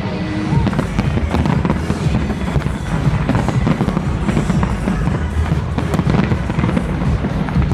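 A dense fireworks barrage: many shells bursting in quick succession, giving rapid overlapping bangs and crackle with no pause.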